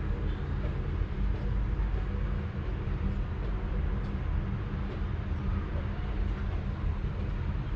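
A sleeping cat purring: a steady, low, fluttering rumble without pauses.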